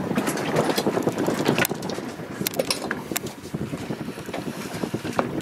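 Wind buffeting the microphone and water lapping against a small fishing boat's hull, with a few sharp clicks around the middle.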